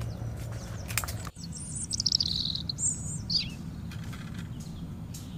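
Wild birds calling. About two seconds in comes a fast run of high notes that steps downward, and a second later a call that sweeps steeply down in pitch, all over a steady low hum.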